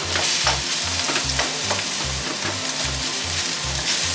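Rice, onion and sausage sizzling in a hot oiled wok while a spatula stirs and breaks up the rice, with short scrapes and taps of the spatula against the pan every half second or so.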